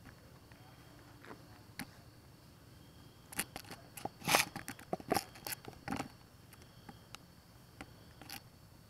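Close handling noise on the camera: a cluster of sharp crackles, clicks and scrapes, densest from about three to six seconds in, with a few single clicks before and after, over a faint steady hiss.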